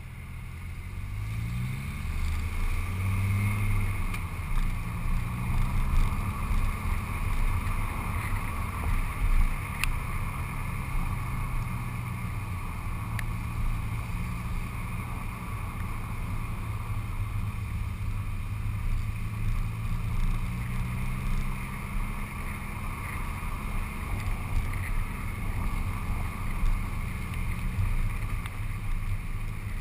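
Audi car driving, heard from a camera mounted by its front wheel: the engine pulls away with a rising note over the first few seconds, then settles into a steady drone. Tyre and wind noise from the wet road runs under it.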